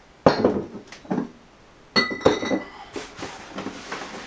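Handling noises as a box is moved, a knock about a third of a second in, then glass beer bottles clinking together about two seconds in, with a short ring.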